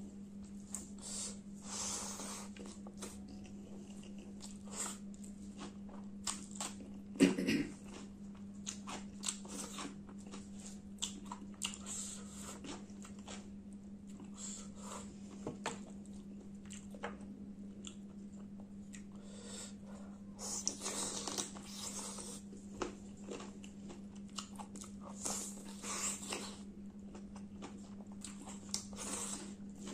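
Close-miked eating by hand: wet chewing, biting and smacking of curry-soaked rice and chicken, with scattered small clicks and squelches from fingers in the food. A steady low hum runs underneath.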